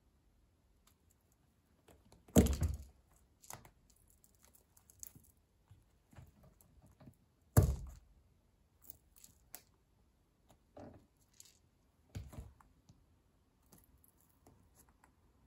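Stiletto heels of Buffalo London leather boots knocking down on a hard floor among broken pencil splinters. Two loud heel strikes come about five seconds apart and a softer third comes later. Small clicks and crackles of the wood fragments sound between them.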